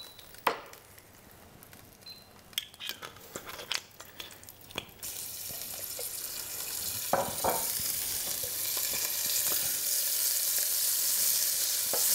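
Scattered clicks and knocks of utensils on a pot, then, about five seconds in, a sizzle starts and grows steadily louder: pieces of wild boar meat searing in hot oil in a stainless steel pot.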